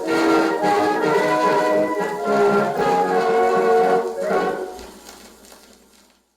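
Early band music with brass, played back from a Lambert celluloid phonograph cylinder; the last notes die away about four to six seconds in, leaving silence at the end of the recording.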